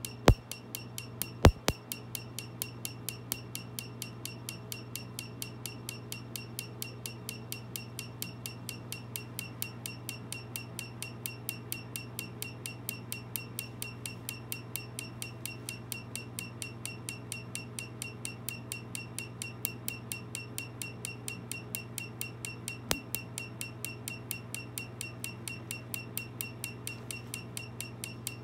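Tattoo-removal laser firing rapid pulses on the skin, a sharp snap about three or four times a second, over a steady low hum.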